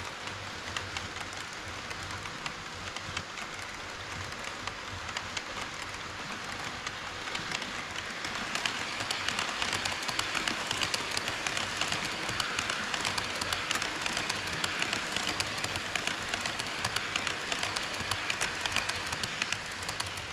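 HO scale model train running on KATO Unitrack: a dense rattle of fine, rapid clicks from wheels and rail joints over a steady rumble. It gets louder about eight seconds in.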